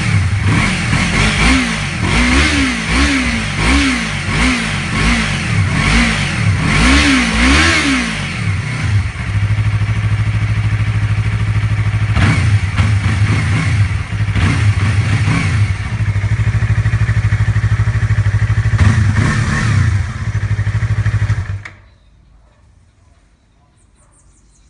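Yamaha R3's 321 cc parallel-twin engine through a WR Extreme carbon-fibre slip-on muffler, revved in repeated quick throttle blips, then settling to a steady idle with a few short blips. The engine stops suddenly near the end.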